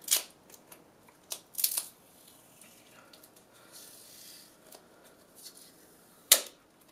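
Thin plastic wrap being peeled by hand off the cells of a lithium polymer battery pack. It makes scattered sharp snaps and crackles: one at the start, a few about one and a half seconds in, a soft tearing hiss around the middle, and a loud snap near the end.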